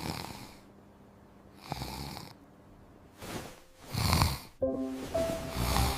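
A man snoring: a series of separate, uneven snores, with music coming in about two-thirds of the way through.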